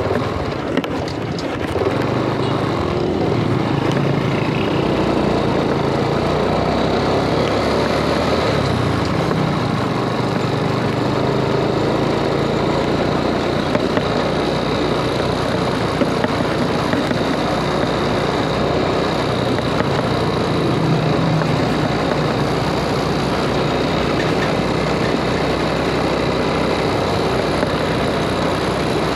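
A vehicle's engine running and its road noise, heard from on board as it drives along steadily; the engine's low note drifts up and down a little now and then.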